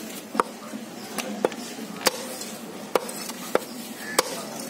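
Heavy knife chopping fish on a wooden log chopping block: about seven sharp knocks of the blade into the wood, unevenly spaced.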